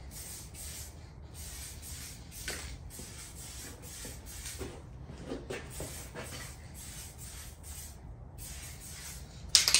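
Aerosol spray paint can hissing as paint is sprayed, in long bursts with a couple of brief pauses. A louder, rapid rattling starts near the end.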